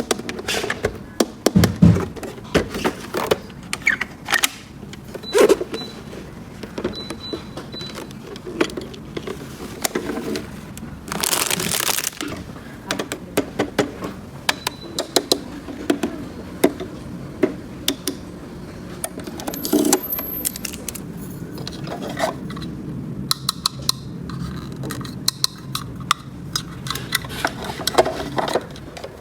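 Small plastic toy pieces handled and set down, with many quick clicks, taps and clatters, and a short rustle, like packaging or plastic wrap, about eleven seconds in.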